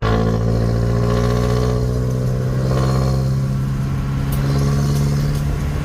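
Jeepney's diesel engine running steadily, a loud, even engine note.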